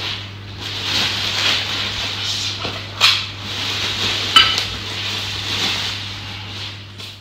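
Plastic wrap crinkling and rustling as metal floor-lamp parts are unwrapped, with two sharp knocks about three and four and a half seconds in, the second a metallic clink with a short ring.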